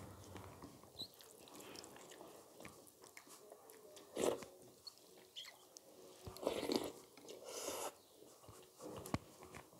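Close-miked eating sounds of a person chewing mouthfuls of rice and chicken in curry eaten by hand, with soft wet mouth noises throughout. Louder wet smacks come about four seconds in and again between six and eight seconds, with a sharp click near the end.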